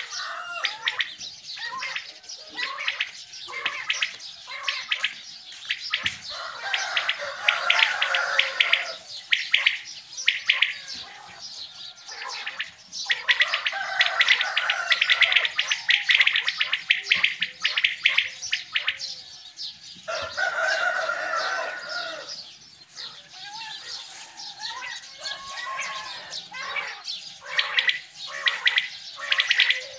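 Several caged quails calling together: rapid, repeated sharp chirping calls overlapping one another, louder in stretches with short lulls between. These are caller birds kept to call in wild quail for the morning hunt.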